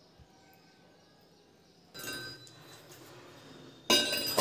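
A chrome basin waste fitting clinking against a ceramic wash basin as it is set into the drain hole. A lighter knock comes about two seconds in, then a loud ringing clink near the end.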